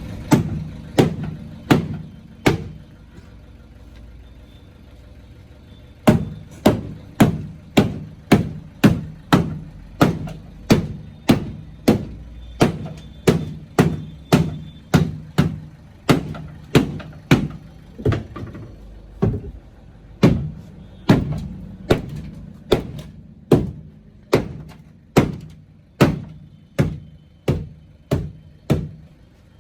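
Repeated hammer blows, each with a short ring, struck while straightening a car's bent boot. A few blows come first, then a pause of a few seconds, then a steady run of about two blows a second.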